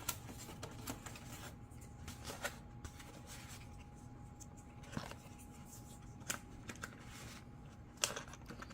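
Handling noise from fitting plastic and foam RC-plane parts together: scattered light clicks and rustles, with a sharper click about five seconds in and another near the end.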